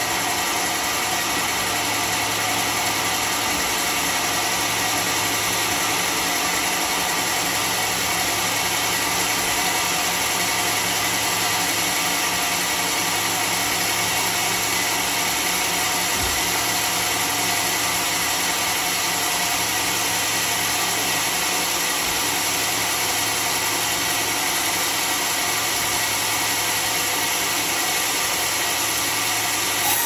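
Homemade vertical band sawmill running unloaded, a steady hum and whine of the motor and blade while the carriage brings the log up. Right at the end the blade bites into the log and the sound changes as the cut begins.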